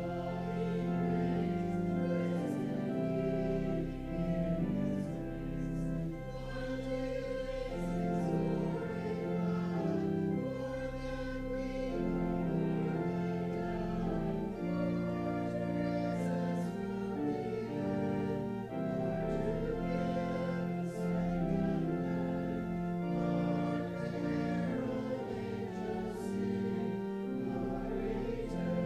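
Voices singing a hymn together, accompanied by organ playing sustained chords that change step by step.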